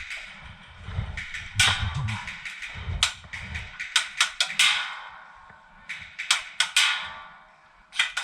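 A string of irregular sharp clacks and knocks, some in quick clusters of two or three, with dull low thuds between them.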